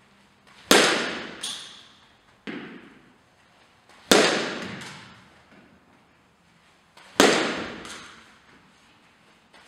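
Softball bat hitting front-toss pitches: three sharp cracks about three seconds apart, each echoing in a large indoor hall and followed by a few fainter knocks.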